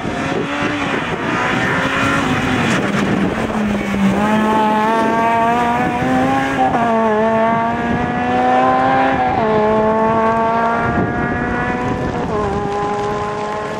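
Honda Civic rally car's four-cylinder engine accelerating hard away from a standing start, its revs climbing through the gears. Three upshifts, each a sudden drop in pitch, come about seven, nine and a half and twelve and a half seconds in, and the sound fades slightly near the end as the car pulls away.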